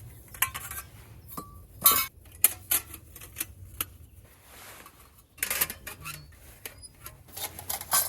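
Metal parts of a folding firebox stove clinking and knocking as it is assembled and set in place: a series of separate clinks and taps, one with a short metallic ring, getting busier in the second half.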